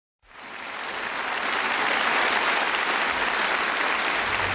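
Audience applauding, swelling up over the first second and then holding steady.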